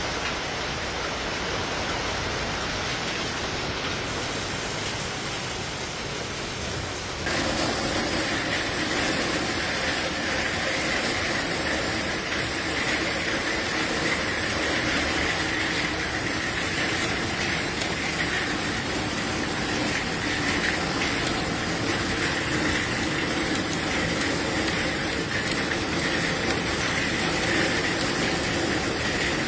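Steady rushing noise of a heavy downpour, with no distinct knocks or calls. About seven seconds in it cuts abruptly to a different recording of the rain, with a steadier hum and hiss.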